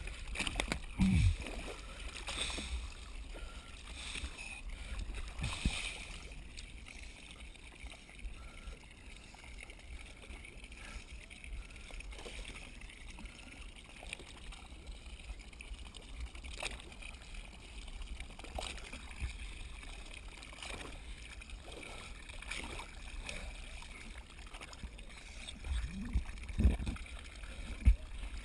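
Boat at sea: a steady low rumble with water sloshing, broken by scattered knocks and two louder thumps, one about a second in and a cluster near the end.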